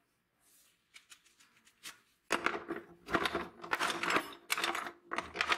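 Metal hand tools, pliers, shears and files, clinking and clattering against one another in a wooden box as hands rummage through them. A few light clicks come first, then dense clattering with some metallic ringing from a little past the middle on.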